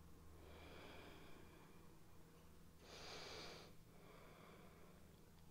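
Near silence with soft breathing through the nose while holding a seated yoga twist: a faint breath in early on, then one clearer exhale about three seconds in.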